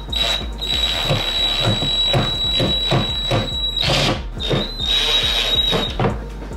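Ryobi cordless drill-driver running at a steady speed as it drives screws into a cabinet door hinge, a high steady motor whine. It stops for about half a second around four seconds in, runs again briefly, and stops near the end. Background music with a steady beat plays under it.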